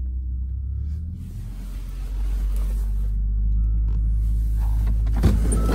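Low, steady rumble of a heavy engine working close by, growing louder about two seconds in, with a single knock near the end.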